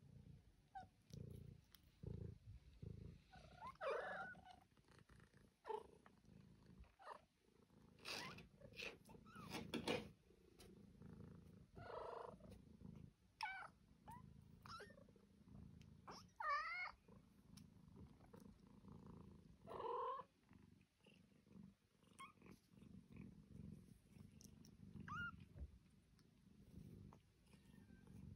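A litter of young British Shorthair kittens purring softly as they sleep in a heap, with short, wavering high-pitched mews and squeaks from one kitten or another every few seconds.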